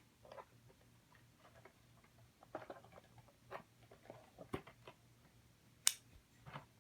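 Faint, scattered clicks and crackles of a plastic-and-cardboard blister pack of toy cars being handled and cut open, with one sharp click about six seconds in.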